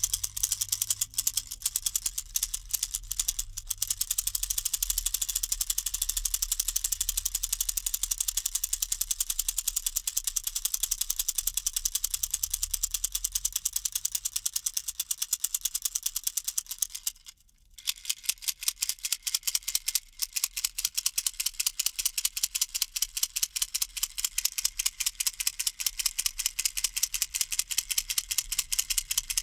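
A baby's toy rattle shaken steadily, its beads clicking rapidly and evenly, with a brief pause a little over halfway through.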